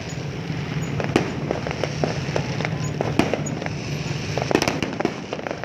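Fireworks going off in an irregular string of bangs and pops, with a dense cluster of them about four and a half seconds in.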